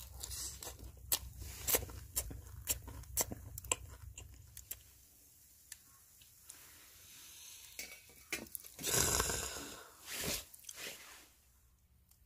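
A person chewing crisp grilled fish close to the microphone: a run of short crunches for the first few seconds, then two louder brushes of noise near the end.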